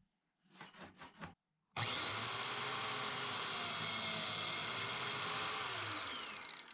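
A few short scraping strokes, then a handheld power tool's electric motor runs at speed for about four seconds, its high whine wavering under load, and winds down near the end.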